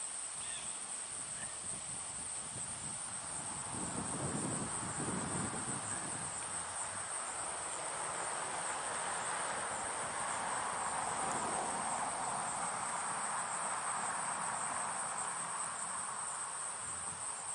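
Insects trilling steadily at a high pitch, typical of crickets, over a soft rushing background that swells through the middle.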